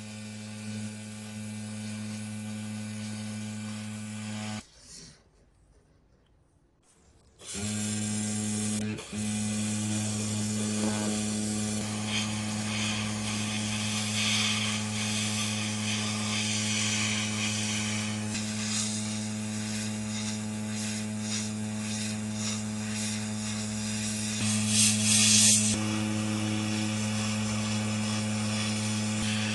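An electric power tool's motor running with a steady hum. It stops for about three seconds near the five-second mark, then runs on.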